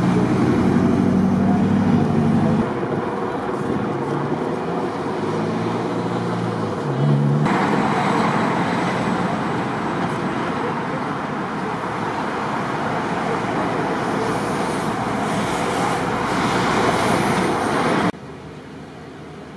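Road traffic on a busy multi-lane street: a steady wash of car tyre and engine noise, with a low engine hum in the first few seconds. The sound shifts abruptly about seven seconds in and drops to a quieter level near the end.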